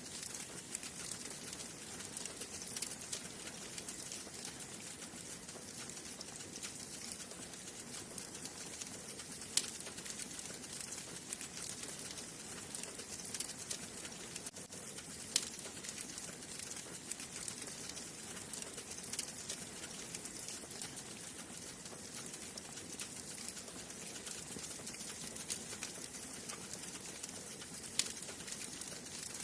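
Wood fire burning in a fireplace: a steady hiss with constant small crackles, and a few louder pops, about ten and fifteen seconds in and near the end.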